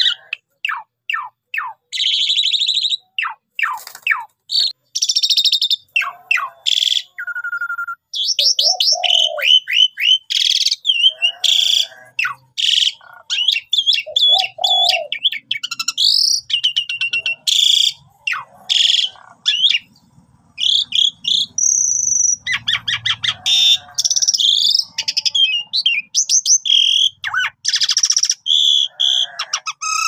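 Asian pied starling (jalak suren) singing a loud, varied song of harsh chattering phrases, quick down-slurred whistles and rapid rattles, broken by short pauses.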